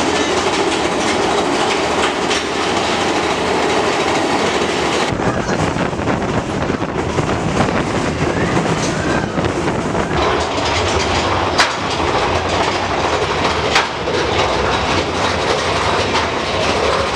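Rail cars clattering along a track with a steady rumbling clickety-clack. The sound changes character about five seconds in, and a couple of sharp clicks come later.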